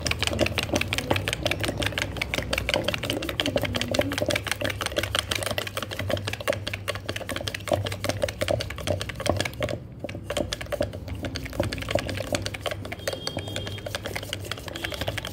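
Wooden madhani churning stick twirled back and forth in a steel pot of soured cream, its head clattering in a fast, even run of clicks with some splashing. The cream is close to the point where the butter separates.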